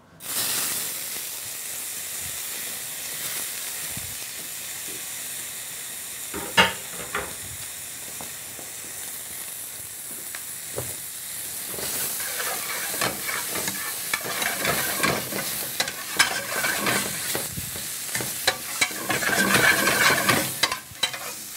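Still-moist wild mushrooms sizzling in oil in a stainless steel sauté pan on a gas burner as their liquid cooks off. A few sharp clicks of a utensil against the pan come in the first half, and from about halfway on the stirring and scraping grow busier.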